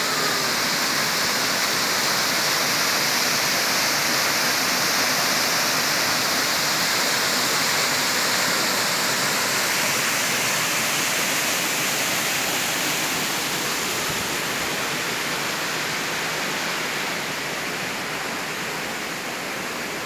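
Small waterfall pouring down a rock face into a plunge pool: a steady, dense rush of falling water that eases a little over the last few seconds.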